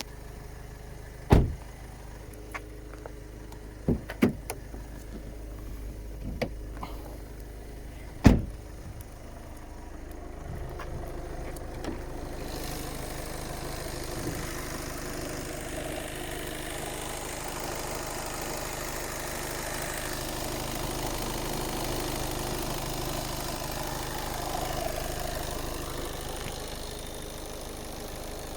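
Skoda Octavia 2.0 TDI four-cylinder diesel idling, with several sharp knocks over the first eight seconds, the loudest about a second in and about eight seconds in. These are the clunks the owner reports when the brake pedal is released. From about ten seconds in, a louder steady rushing noise builds.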